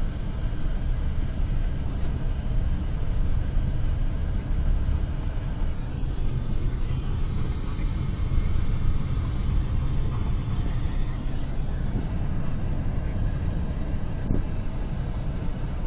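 Steady low rumble of tyres on a dirt road and wind, heard inside the cabin of a car coasting at about 30 km/h without engine power.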